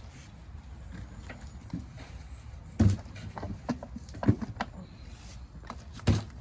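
Irregular knocks and clunks, the three loudest about three, four and six seconds in, over a low steady rumble.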